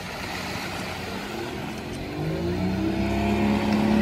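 Outboard engine of a small passenger speedboat running offshore, coming in about a second and a half in and growing steadily louder as the boat approaches. Under it, small waves wash onto a sandy beach.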